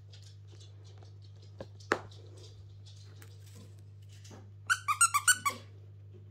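Faint rustling and a sharp click as a handmade felt quiet book is handled, then a quick run of about six high squeaks or yips, the loudest sound, lasting under a second.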